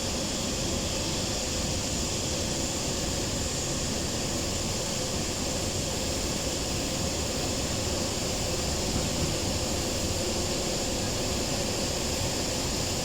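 Steady mechanical drone of engines or heavy machinery, even in level throughout, with a faint steady hum running under it.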